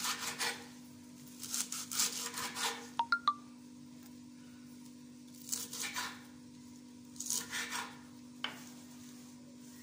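Kitchen knife chopping a pile of fresh coriander in short bursts of quick strokes, with a sharp metallic clink about three seconds in.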